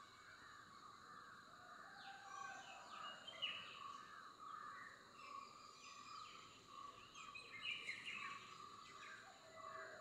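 Faint background birdsong: a steady chatter of distant birds with short chirps and quick falling calls, busiest about two to four seconds in and again near eight seconds.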